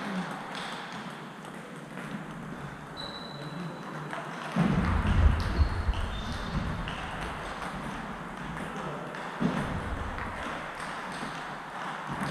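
Table tennis balls clicking on tables and bats from play at other tables, over a steady hall murmur. A low rumble runs from about five to nine seconds in.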